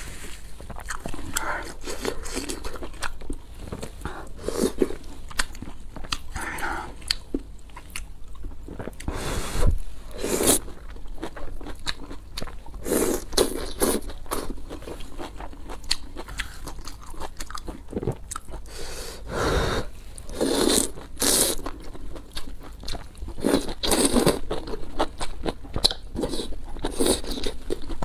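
Close-miked eating sounds: biting and chewing pieces of food from a bowl of spicy noodle soup, in short bursts that come again every second or so, with a few louder ones partway through.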